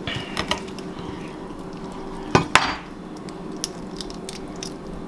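Kitchen knife cutting a crappie throat on a bamboo cutting board: light clicks, then two sharp knocks a quarter second apart about halfway through.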